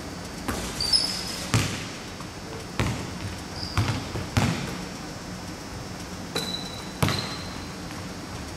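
A basketball bounces several times on a hardwood gym floor after a three-point shot, each thud echoing in the hall. Sneaker squeaks are heard a few times.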